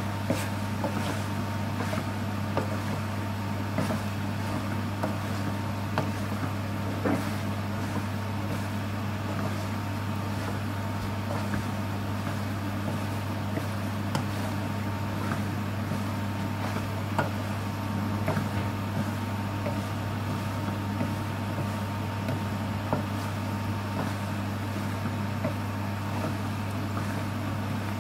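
A wooden spoon stirring cooked pasta in a frying pan, with light knocks and scrapes against the pan now and then, over a steady low hum.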